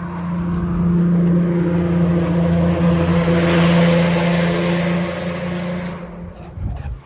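A car passing by, its engine droning at a steady pitch, growing loud to a peak about halfway through and then fading away near the end.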